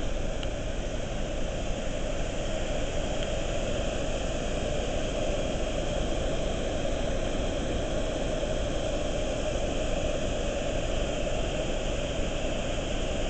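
Water pouring over a low river dam, a steady unbroken rush.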